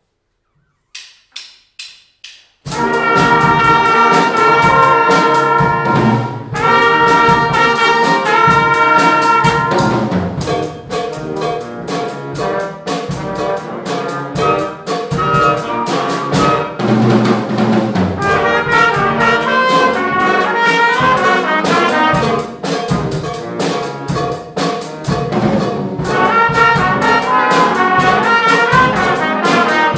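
A grade 9 school band playing a brass-led piece, with trumpets to the fore. About a second in there are four short, evenly spaced clicks, and the whole band comes in together just under three seconds in.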